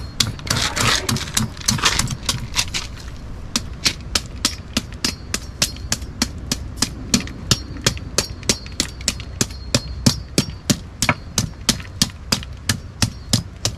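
Kitchen knife scaling a whole sea chub (Kyphosus) on a wooden board: quick, even scraping strokes of the blade against the scales, about three a second, becoming steady about three seconds in.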